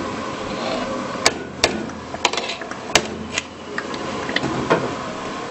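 Long-handled metal ladle stirring rava kesari and knocking against the side of a large metal cooking pot: a few sharp clanks about a second apart, over a steady background hiss.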